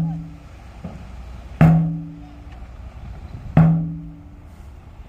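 Music with a slow drum beat: a deep, pitched drum hit about every two seconds, each ringing out and fading within about half a second.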